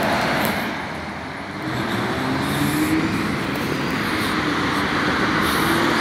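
Steady road traffic noise from cars and trucks passing on the highway, with one vehicle's engine tone rising slowly in the middle.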